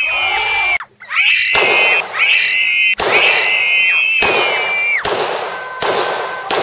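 Shrill, high-pitched squealing tones over a dense hiss, broken by several sharp cracks, in chopped layered segments.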